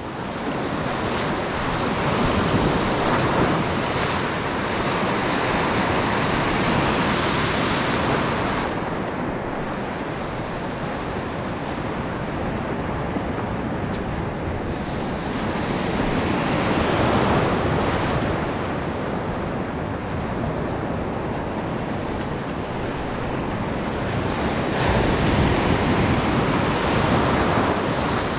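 Atlantic surf breaking and washing in over shallow sand, swelling louder three times as waves come in.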